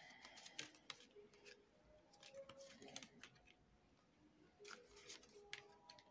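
Faint clicks and light rustling of tarot cards being drawn and laid down, just above near silence.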